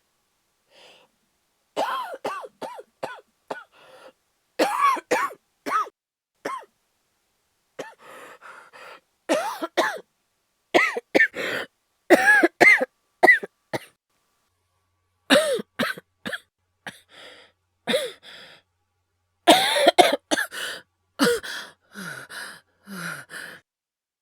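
A man coughing in repeated fits, several harsh coughs in quick succession each time, with throat clearing and short pauses between the fits. The coughing is acted: a voice actor's performance of a sick character's coughing fit.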